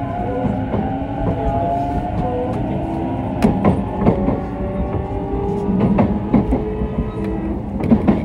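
Running sound inside a JR East E233-0 series electric train: a steady low rumble with the traction motors' whine, several tones slowly shifting in pitch. Wheels click over rail joints several times from about three seconds in.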